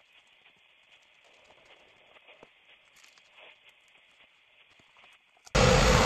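Faint handling clicks and rustles of a leather sole being worked by hand, then near the end a shoe-repair finishing machine's edge trimmer cuts in suddenly and loudly, running with a steady whine as it trims the sole's edge.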